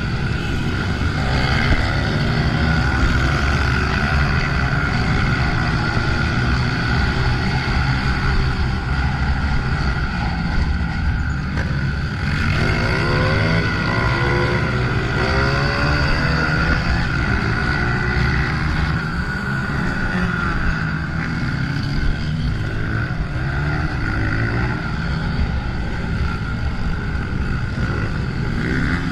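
Honda CRF125F dirt bike's single-cylinder four-stroke engine running hard, its pitch rising and falling again and again as the throttle opens and closes.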